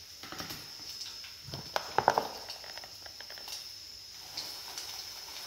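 Hot oil sizzling in a frying pan, with a quick cluster of knocks and rattles from a plastic tub of dough being handled about two seconds in.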